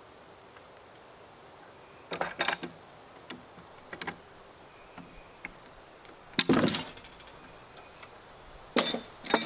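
Hand tools being handled against a timber: sharp metallic clinks and knocks in a few short clusters, the loudest about six and a half seconds in.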